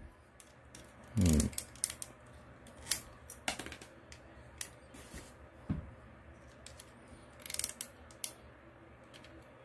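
Scattered clicks and light knocks from a 3A Bumblebee action figure's joints and parts as they are bent and pushed into a seated pose, with a short low sound about a second in.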